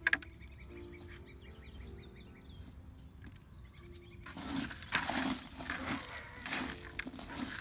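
A hand stirring and scraping moist compost with crushed eggshells in a plastic bucket: a scratchy, crunching rustle that starts about four seconds in and is the loudest sound. Before that, faint bird chirps over low steady tones.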